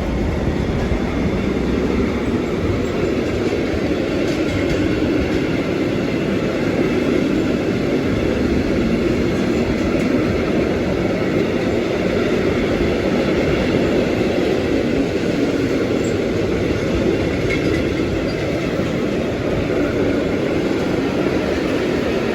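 Freight train hauled by a Class 66 diesel locomotive passing through the station, its wagons rolling by on the rails with a steady, unbroken noise.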